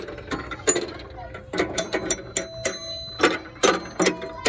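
Metal playground musical instrument struck by hand: a quick, uneven run of sharp strikes, several leaving short ringing tones.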